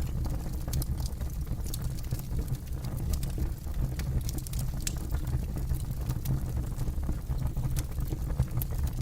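Campfire crackling: frequent sharp, irregular pops and snaps over a steady low rumble.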